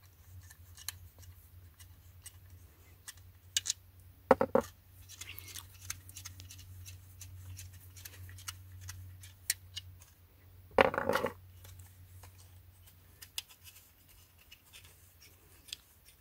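Small clicks and scratches of hands unscrewing the knobs from a car seat headrest's mounting bar. There are two louder rattles, about four and eleven seconds in, over a faint steady low hum.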